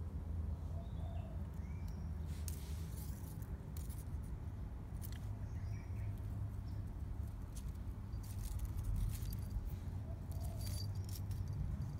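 Light rustling and scratching in short bursts as a kitten paws at a dangled stem toy on concrete strewn with dry leaves, over a steady low rumble.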